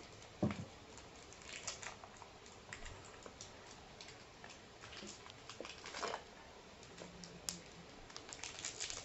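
Faint, irregular small clicks and crinkles of plastic snack wrappers being handled.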